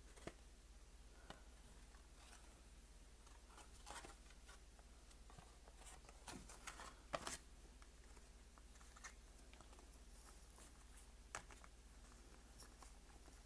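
Near silence with faint, scattered rustles and light taps from cardstock and twine being handled as twine is wrapped around a paper card; the loudest tap comes about halfway through.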